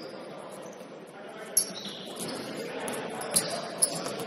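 Basketball game on an indoor court: a ball bouncing sharply a few times, the strongest two bounces about half a second apart near the end, with short high squeaks from shoes on the floor over the murmur of players' voices.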